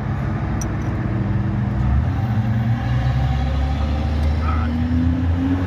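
Diesel truck engine being cranked by its starter without catching, just after its fuel system was bled from running dry. A steady mechanical drone that grows a little stronger about two seconds in.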